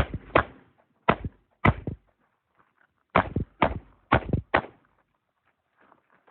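Revolver gunshots fired in a USPSA stage: eight shots, four in quick succession, a pause of about a second and a half, then four more, each shot with a short echo.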